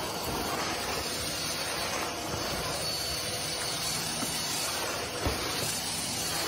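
Stick vacuum cleaner running with a steady hiss and a faint motor whine, with one brief knock about five seconds in.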